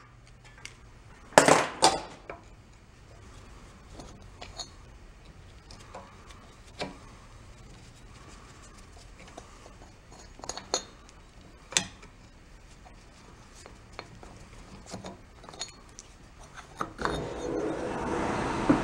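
Scattered metallic clinks and clanks of tools and loose engine parts being handled, as the round top cover of a 1937 Sears Waterwitch outboard motor is lifted off. The loudest clanks come about a second and a half in and again around eleven seconds, with lighter ticks between; a denser handling noise builds near the end.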